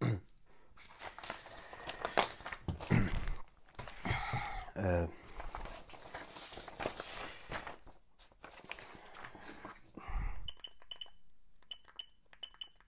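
Paper rustling as a letter or envelope is handled, with a brief voice sound in the middle. Near the end comes a run of short high beeps from a smartphone's keypad as a number is keyed in.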